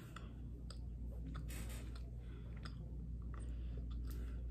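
Scattered soft clicks and mouth sounds of closed-mouth chewing on a bite of mini muffin that she calls kind of hard, over a low steady hum.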